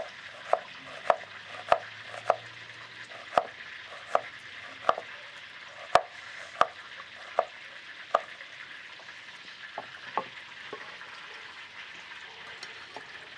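A chef's knife slicing a raw onion on a wooden cutting board: about a dozen sharp knocks on the board over the first eight seconds, then a few lighter knocks. Underneath, a steady sizzle of fish frying in hot oil.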